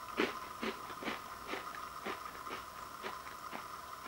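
Someone chewing a crunchy bite-size coconut and white chocolate chip cookie, about two crunches a second.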